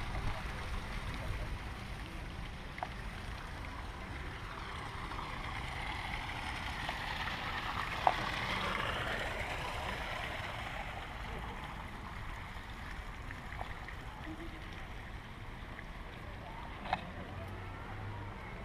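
Steady shopping-mall background noise that swells for a few seconds in the middle, with a sharp click about eight seconds in and another near the end.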